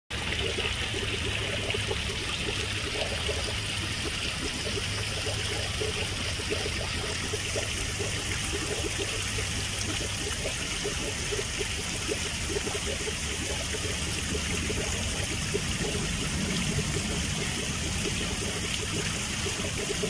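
Small rock-ledge pond waterfall trickling and splashing steadily into an open patch of a frozen pond, running on the low flow of a 3000-gallon-per-hour submersible pump.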